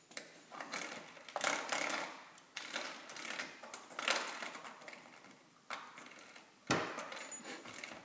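Coiled-spring door stop being batted by a puppy, twanging about seven times at irregular intervals, each twang ringing on briefly with a metallic rattle.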